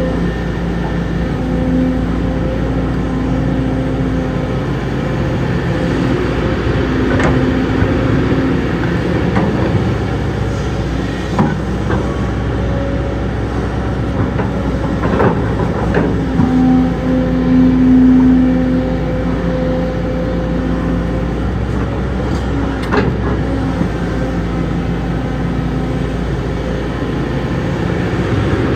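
Heavy diesel earthmoving machinery working: a steady engine note that rises and falls under load, with occasional sharp metallic clanks.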